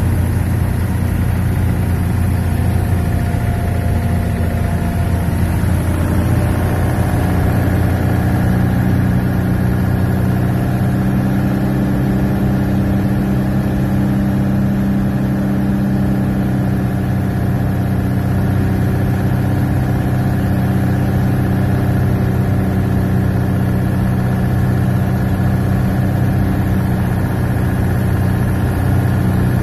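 Cessna 182's SMA turbocharged four-cylinder diesel engine and propeller running steadily on approach to land, heard inside the cabin as a loud drone. Its note shifts about six seconds in, then holds steady.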